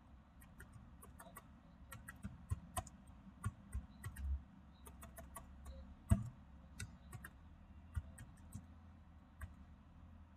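Slow, irregular keystrokes on a computer keyboard, faint, over a low steady hum.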